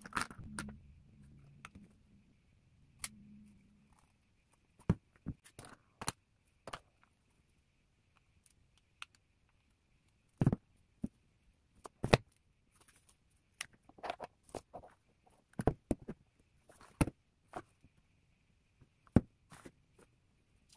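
Scattered clicks, taps and knocks as a plastic cordless water flosser, its charging cable and paper manual are handled and set down, some a second or more apart. A faint low hum runs under the first few seconds.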